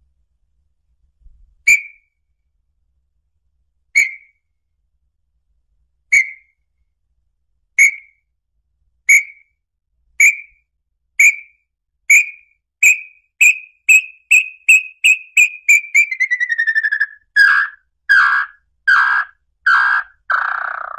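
Small-billed tinamou (inhambu-chororó) song. It begins as clear whistled notes about two seconds apart that come faster and faster and rise a little in pitch. It then runs into a quick falling trill and ends in a few louder, lower notes.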